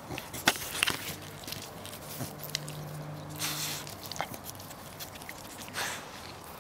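Beagles scuffling at play close to the microphone, with scattered knocks and short rustling noises as one dog brushes past.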